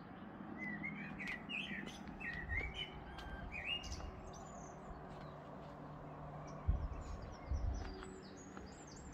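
Songbirds singing: quick warbling phrases over the first few seconds, then shorter, higher chirps from about seven seconds in. A few low thumps come near the end.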